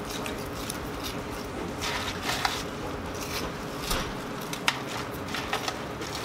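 People eating: wet chewing and squishing, with scattered small clicks and crackles as burgers, fries and a paper drink cup are handled. A steady room hum runs underneath.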